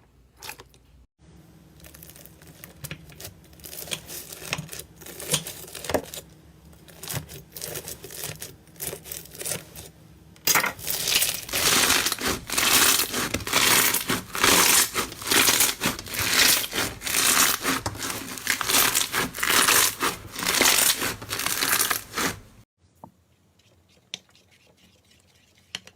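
Slime being squeezed and stretched by hand: a run of small sticky clicks and crackles, then from about ten seconds in a much louder, dense crackling that stops abruptly a few seconds before the end.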